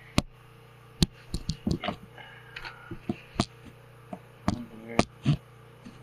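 Handling noise: a dozen or so irregular sharp clicks and light knocks, over a faint steady hum.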